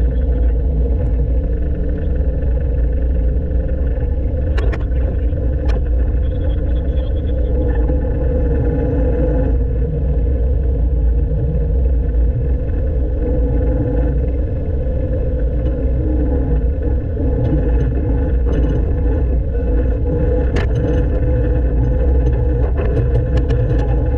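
Diesel engine of a 1970s Poclain LC80 excavator running with a steady low rumble, with a few sharp clicks or knocks about five seconds in and again near the end. The owner reports a misfire or fueling issue.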